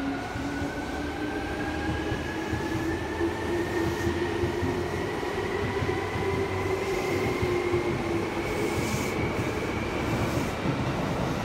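Seibu New 2000 series electric train pulling out of a station platform, its motor whine rising slowly and steadily in pitch as it picks up speed, over a constant rumble of wheels on rail.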